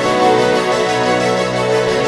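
Background music with sustained, layered tones, steady in level and without a strong beat.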